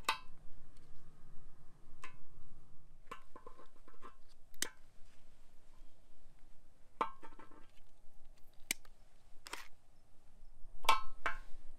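About ten irregularly spaced light clinks and taps, some with a short metallic ring, as skewers are pulled from a bacon-wrapped rattlesnake and handled on a steel cooking disc.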